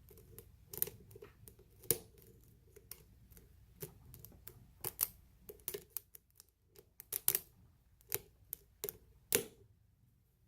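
Lock pick and tension wrench working the pins of a pin-tumbler lock: small irregular metal clicks and ticks, a few sharper ones standing out, with short pauses between spells of picking.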